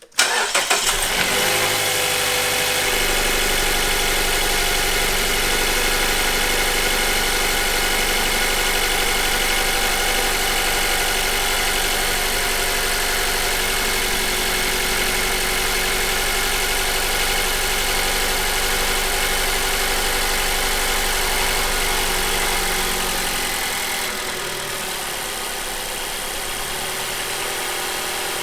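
Mazda CX-5 four-cylinder gasoline engine starting right at the beginning, catching at once and then idling steadily. This is its first start on freshly replaced spark plugs, and it runs. It gets a little quieter about 23 seconds in.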